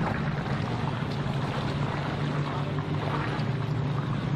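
A steady low hum that sets in at the start, over a wash of wind noise on the microphone.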